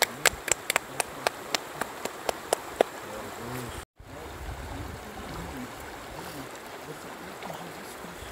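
Steady rush of river water, with a run of sharp irregular clicks, about two or three a second, during the first three seconds. The sound cuts out for an instant about four seconds in, then the water noise carries on alone.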